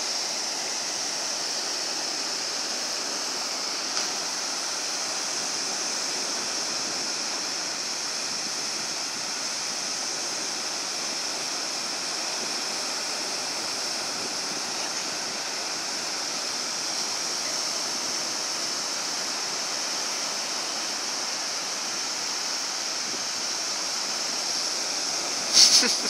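Steady hiss of small waves breaking on a sandy beach, an even wash with no rhythm to it. Near the end there is a brief, louder burst of sound.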